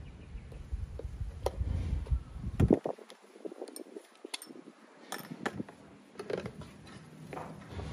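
Plastic nitro fuel jug and squeeze fuel bottle being handled: scattered clicks, taps and knocks as caps and bottles are picked up and set down. A low rumble in the first three seconds drops away suddenly.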